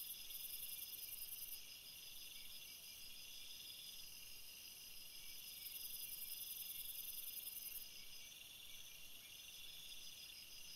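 A steady, high-pitched chorus of chirping insects. It drops abruptly in level about one and a half seconds in, rises again midway and drops again near the end.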